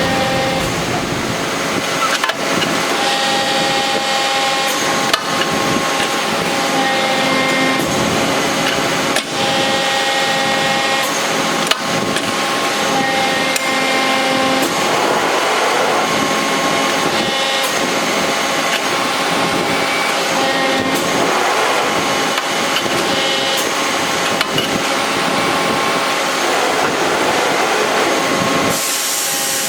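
Hydraulic CNC press brake running: a steady, noisy hum with whining tones that come and go every few seconds, and a few sharp clicks.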